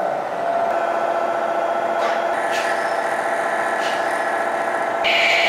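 Milling machine spindle running with a long 50 mm end mill cutting into an aluminium block, a steady whine. About five seconds in it gets louder and a higher tone joins.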